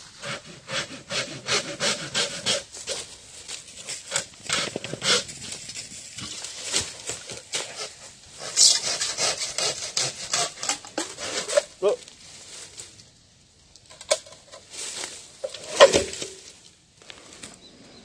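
A bamboo stalk being sawn: quick rhythmic rasping strokes, about three a second, which pause briefly and then resume. A sharp crack sounds near the end.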